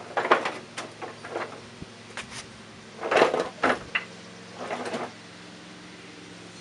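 A John Deere LA105's steel mower deck being dragged out from under the tractor: a run of irregular scrapes and clunks over the first five seconds, then they stop.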